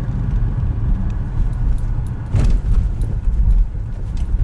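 Road rumble inside the cabin of a Nissan X-Trail T32 as it drives over rail tracks. The tyres knock over the rails about halfway through. The front suspension makes no creak, its strut bump stops freshly greased.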